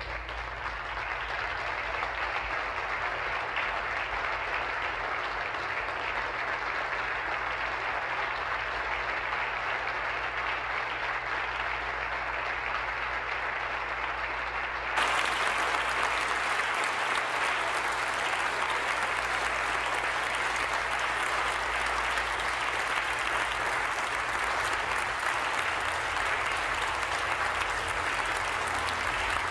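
A chamber full of legislators applauding, a dense, steady clapping that gets suddenly louder and brighter about halfway through.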